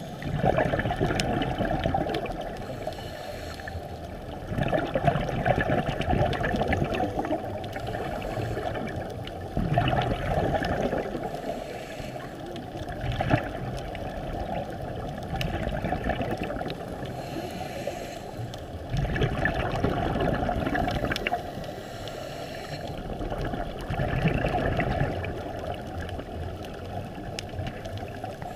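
Scuba diver's exhaled bubbles from the regulator, heard underwater, swelling in a bubbling rush with each breath about every four to five seconds.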